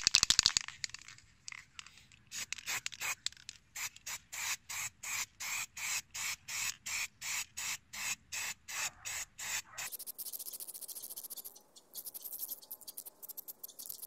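Aerosol spray paint can spraying black paint in short, even hisses about three a second. A brief loud rattle opens it, and a thinner, higher hiss takes over for the last few seconds.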